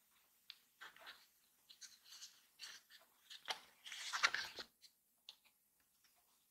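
Folded cardstock paper parts rustling and crinkling as hands handle and fit them together, a run of short crackles with one longer, louder rustle about four seconds in.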